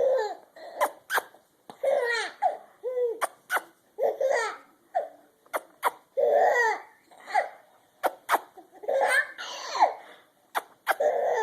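A young child laughing in repeated high-pitched bursts, every second or so, at short sharp noises made between the laughs.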